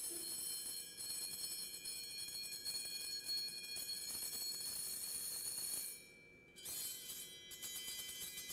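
A Chladni plate set vibrating, giving a high, shrill sustained ringing of several tones at once rather than one pure tone. The ringing breaks off about six seconds in and starts again moments later with a different mix of tones as the plate is sounded again.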